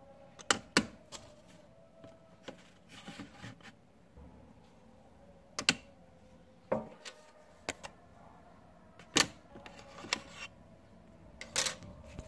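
Sharp plastic clicks and knocks as a magnetic clip-on sunglass lens snaps onto and comes off a plastic eyeglass frame, and the frames are set down on a hard surface. There are about a dozen of them spread out, the loudest coming in close pairs.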